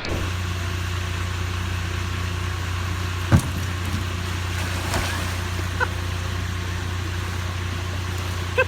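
A motor running steadily with a low hum, and a single sharp knock about three and a half seconds in.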